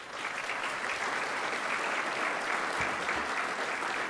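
Large audience applauding, a steady, even clapping of many hands.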